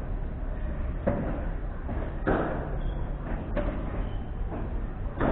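Padel rally: a padel ball knocked back and forth by the players' rackets and off the court, a sharp knock roughly every second, over a steady low rumble.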